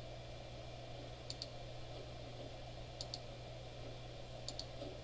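Three computer mouse double-clicks about a second and a half apart, faint and sharp, over a steady low hum.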